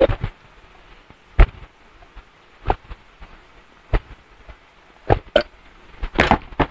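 A man gulping water from a glass pitcher: loud, separate swallows at roughly one-second intervals, then a longer sound near the end as he lowers the pitcher.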